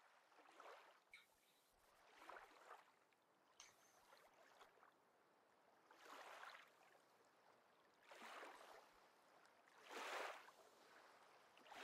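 Faint small waves lapping against shoreline rocks, coming in soft swells every couple of seconds.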